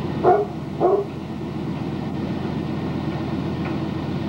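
Engine idling steadily. Two short, loud voice-like calls about half a second apart cut in during the first second.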